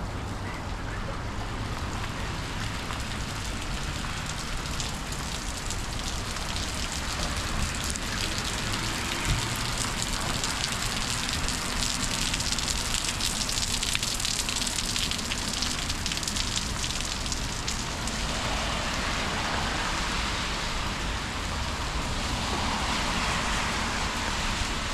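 Summer rainstorm: steady rain falling and hissing on the street, a little heavier through the middle.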